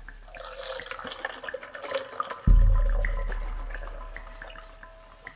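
Liquid plant extract poured from a glass jar into a plastic funnel, splashing and trickling into a plastic bottle, with small clicks of glass and plastic. About halfway a sudden low rumble starts and fades away.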